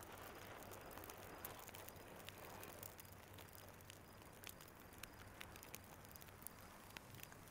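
Near silence: faint room tone with a low steady hum and scattered faint ticks.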